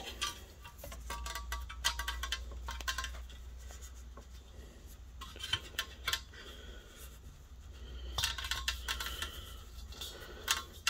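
Hands handling the torchiere lamp head's hardware and cord: scattered small clicks and clinks in clusters near the start and again toward the end, over a low steady hum.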